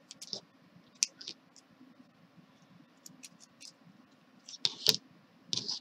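Scissors cutting crochet yarn: a scatter of short sharp clicks and snips amid light handling of the work, the loudest a knock near the end.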